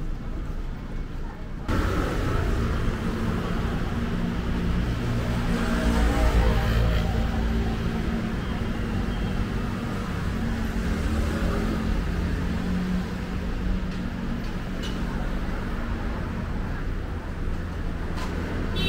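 Road traffic on a city street: vehicle engines and tyre noise passing by. The noise steps up suddenly just under two seconds in and swells loudest about six seconds in as a vehicle goes by.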